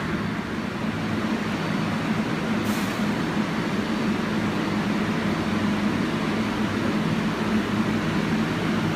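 R188 subway train on the 7 line moving through the station, with a steady rolling rumble and motor hum. A short high hiss comes about three seconds in.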